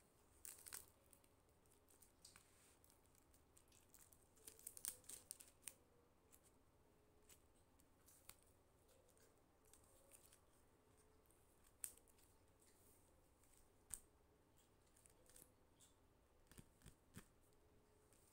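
Faint crinkling and clicking of tape-laminated paper cutouts being handled and slid over a paper play board: a short cluster about half a second in, a longer one around four to five seconds, then scattered single clicks.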